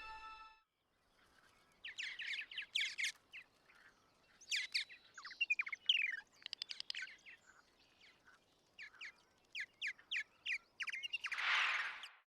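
Birds chirping and twittering in quick runs of short calls and falling notes, with pauses between the runs. A brief rushing noise comes near the end.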